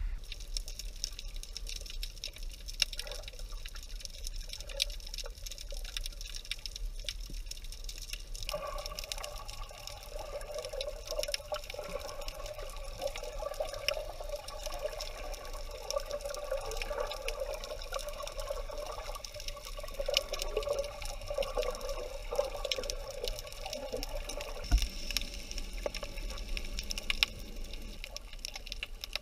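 Seawater sloshing around an action camera at the surface, then the muffled sound of the sea with the camera underwater, with a steady fine crackle throughout. A wavering hum joins about eight seconds in and fades near the end.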